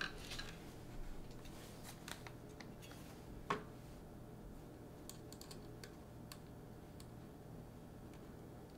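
Faint, scattered clicks and ticks of a screwdriver turning screws into a plastic blaster body, with one sharper click about three and a half seconds in.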